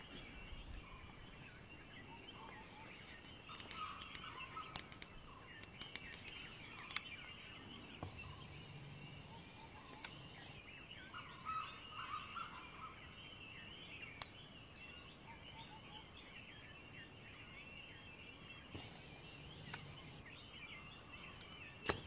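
Dawn chorus of many birds calling at once: a faint, dense, steady mix of short high chirps and calls, with a few sharp clicks.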